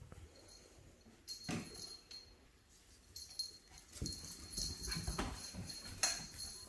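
Puppies playing on a tile floor: a few short, scattered puppy vocal sounds, with a busier stretch of scuffling about four seconds in as two of them wrestle.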